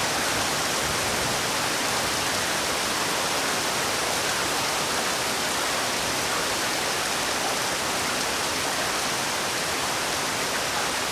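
Heavy rain falling steadily, a dense, even hiss of downpour with no let-up.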